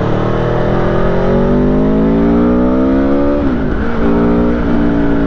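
Aprilia Tuono V4 Factory's 1100 cc V4 engine pulling hard under acceleration, its pitch rising steadily for about three and a half seconds, then dropping sharply and running on at a lower, steadier pitch.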